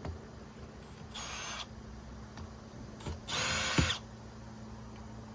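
Cordless drill/driver run in two short bursts, backing out screws, the second longer and louder and ending with a sharp knock.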